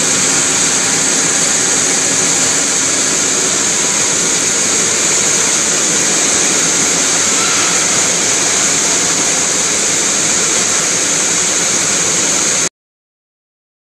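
High-speed double twist wire bunching machines running: a steady, loud, high-pitched hiss that cuts off suddenly near the end.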